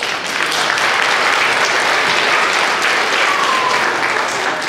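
Audience applauding in a hall: dense, steady clapping from many hands that dies away near the end.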